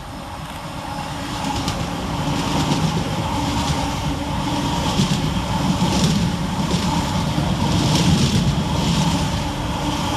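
Class 345 electric multiple unit passing through, with a steady hum of two tones over the rumble of wheels on rail, dotted with clicks, growing louder to a peak near the end.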